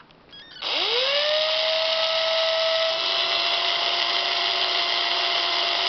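DWT cordless drill/driver's motor, run straight off a UPS lead-acid battery reading 13 volts instead of its own pack, spins up about half a second in with a rising whine and then runs steadily at full speed.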